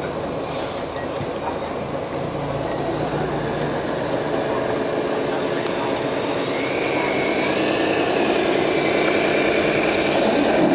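Radio-controlled 6x6 dump truck running, with a steady mechanical whine from its drive. A wavering higher whine joins about halfway through, and the sound gets louder toward the end.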